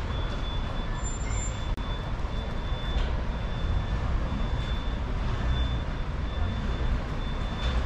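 Street traffic noise: a steady low rumble of vehicle engines, with a faint, steady high whine above it.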